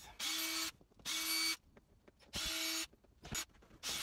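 Cordless drill-driver running in four short bursts, each about half a second, backing screws out of the seat hinges.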